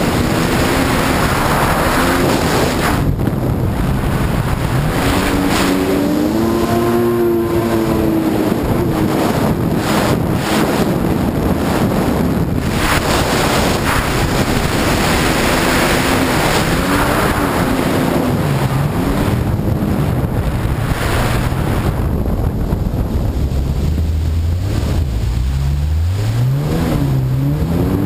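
Sea-Doo personal watercraft engine running at speed, its pitch rising and falling with the throttle, under heavy wind noise on the microphone and rushing water. Near the end the engine pitch climbs in several quick rises.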